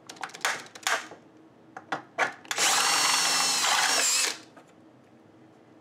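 Cordless drill boring a hole in a control panel. There are a few short clicks, then one steady run of just under two seconds about halfway through, which stops abruptly.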